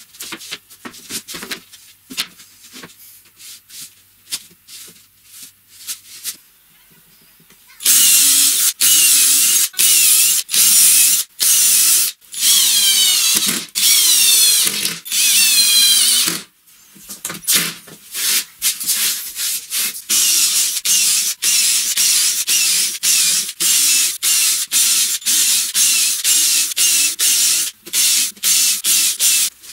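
Cordless drill driving wood screws through a plywood panel in a run of short bursts with brief pauses, the motor whine rising and falling with the trigger. Before the drilling starts, several seconds in, there are only light knocks and handling clicks.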